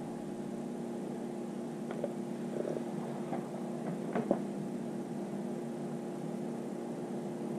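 A steady low electrical or mechanical hum made of several tones, with a few faint clicks about two and four seconds in.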